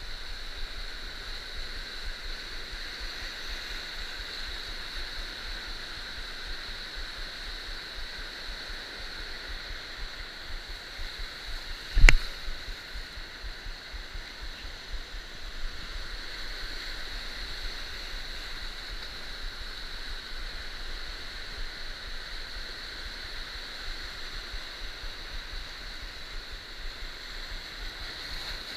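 Surf washing over a shallow coral reef, a steady rushing. A single sharp knock sounds about twelve seconds in.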